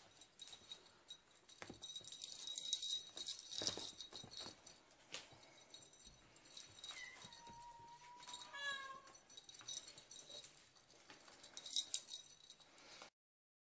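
A kitten meowing: one drawn-out call about seven seconds in, followed by a shorter falling one, over a scratchy hiss with scattered clicks.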